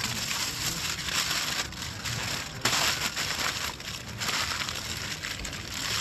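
Aluminium foil crinkling and rustling as it is folded and pressed around pieces of chicken, loudest about two and a half seconds in.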